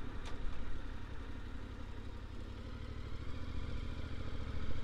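Yamaha Ténéré 700's parallel-twin engine running as the motorcycle is ridden, with wind noise on the microphone; the sound dips a little in the middle and grows louder near the end.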